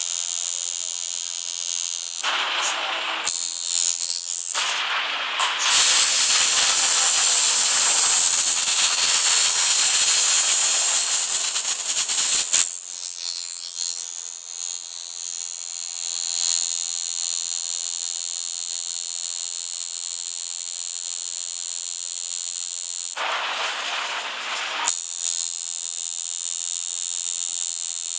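Coil tattoo machine buzzing steadily while tattooing skin. A louder rushing noise covers it briefly about two seconds in, then from about five to twelve seconds in, and once more for a second or two about twenty-three seconds in.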